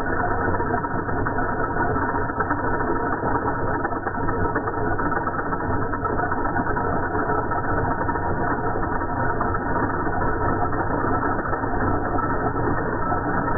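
Metal lathe running steadily, a continuous mechanical drone with gear noise and no pauses.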